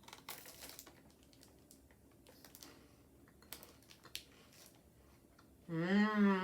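Crisp crunching and small clicks of biting and chewing a solid chocolate bar filled with crispy wafer. Near the end comes a long hummed vocal sound from the eater.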